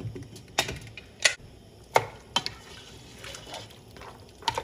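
Pressure cooker lid clinking and knocking against the pot as it is worked off and lifted, then a spatula knocking and scraping while stirring the cooked mutton inside: several sharp knocks, the loudest in the first two seconds.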